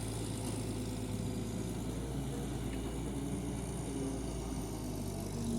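Large excavator's diesel engine running steadily at an even, idle-like speed, a constant low hum.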